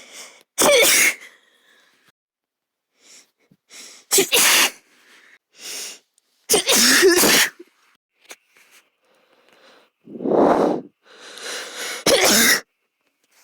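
A girl sneezing repeatedly: about five loud sneezes a few seconds apart, several preceded by quick breaths drawn in.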